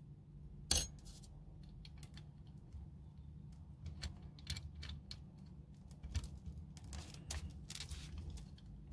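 Small metal parts of a 1911 airsoft pistol clicking and tapping as a section of the lower frame is worked back into place by hand, with one sharper click about a second in and a run of faint light clicks in the second half.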